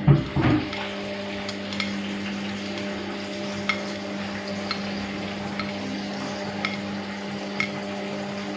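Washing machine running: a steady electric hum with water swishing and splashing. There is a sharp splash or clatter right at the start and a faint click about once a second.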